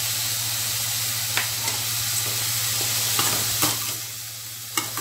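Cauliflower sizzling as it fries in a metal kadai, stirred with a metal spoon that clinks and scrapes against the pan a few times.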